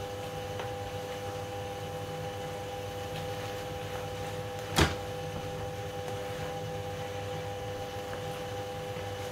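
A steady mechanical hum with a steady tone, under faint sounds of noodles being turned in a frying pan with a spatula and a wooden spoon. About five seconds in, a single sharp knock of a cooking utensil against the pan.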